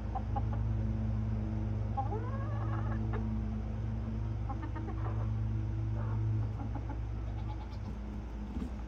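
Young hens clucking and calling, with one drawn-out call that rises and falls in pitch about two seconds in and shorter calls later. A steady low hum runs underneath and stops near the end.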